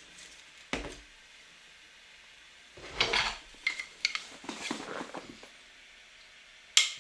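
Parcel packaging being handled: a single knock just under a second in, then a few seconds of rustling and crinkling with sharp clicks.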